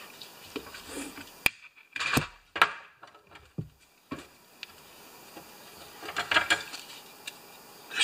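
Short shots of aerosol carburetor cleaner sprayed through a straw into a Tecumseh carburetor's fuel inlet, several brief hisses, mixed with sharp clicks and knocks as the carburetor and spray can are handled over a metal drip pan.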